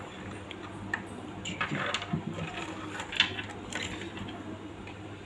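Clicks and light rustling of plastic being handled: the opened housing of a Bluetooth neckband earphone and its cable moved about by hand, with the sharpest click about three seconds in. A steady low hum runs underneath.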